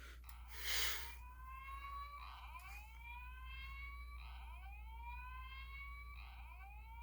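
Fire alarm voice-evacuation whoop tone: a rising sweep that repeats about every two seconds. A short rush of noise about a second in is the loudest moment.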